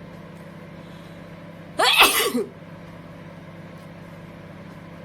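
Cello 800-watt microwave oven running with a steady low hum. About two seconds in, a person gives a short, loud vocal burst lasting about half a second, the loudest sound here.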